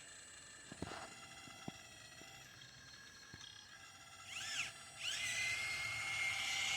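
Electric motor on a Huina RC excavator. A few light clicks come first. About four seconds in there is a brief whine that rises and falls, and then a whine that climbs and holds at a steady high pitch.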